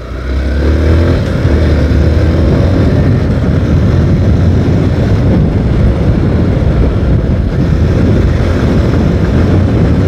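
Motorcycle riding at speed, heard through a phone microphone inside the rider's helmet: a loud, steady rumble of wind and engine that swells sharply in the first second as the bike speeds up.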